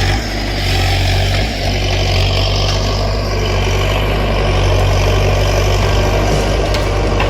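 Heavy engine of logging machinery running steadily, a constant low drone with no change in speed.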